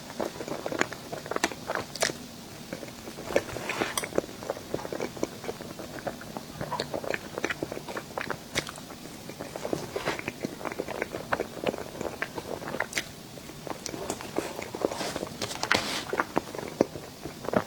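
Close-miked eating: a person biting and chewing a crunchy sweet, a dense run of sharp, crackly crunches that come thickest about ten and sixteen seconds in.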